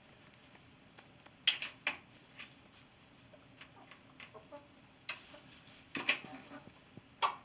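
Rooster clucking softly a few times, with several sharp clicks or taps, the loudest about a second and a half and six seconds in.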